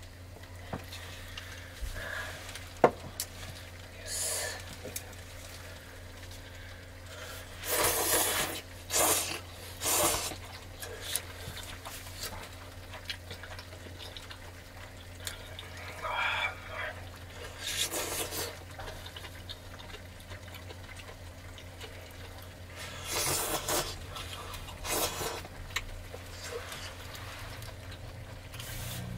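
A person slurping hot udon noodles from a small metal bowl in several short bursts, in clusters a few seconds apart. A single sharp click comes about three seconds in, over a steady low hum.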